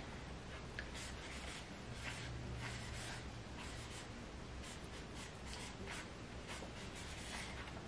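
Marker writing on a spiral notepad: a faint run of short, irregular pen strokes on paper.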